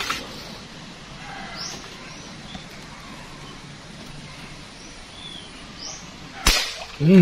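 A few faint, scattered bird chirps over a quiet background, then about six and a half seconds in a single sharp airgun shot.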